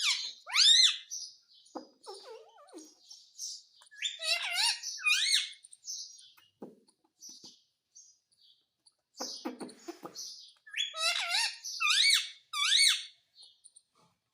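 Pet parrot calling: loud, shrill calls that sweep up and down in pitch, in clusters near the start, around the fifth second and near the end, with softer chattering between.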